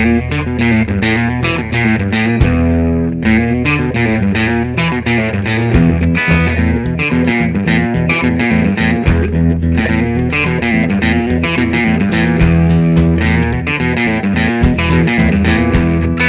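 Background rock music with electric guitar, bass and a steady beat.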